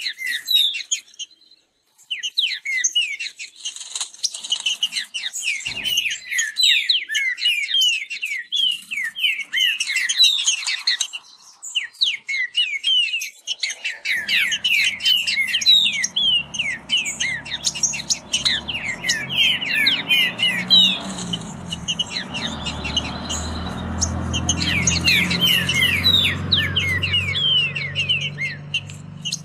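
Green-winged saltators (trinca-ferro) singing the fast song: dense, rapid strings of short, quickly falling whistled notes, breaking off briefly a couple of times. From about halfway a low steady hum runs underneath.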